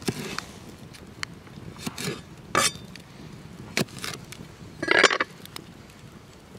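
Serbian chef's knife slicing through a small red onion on a wooden board: a few separate crisp cuts with knocks of the blade on the wood, the loudest and longest crunch about five seconds in.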